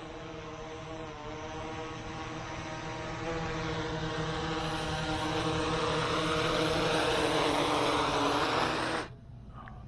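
Autel EVO II quadcopter drone fitted with low-noise propellers, its rotors giving a steady multi-tone hum that grows louder as it descends and closes in to land. The motors cut off abruptly near the end.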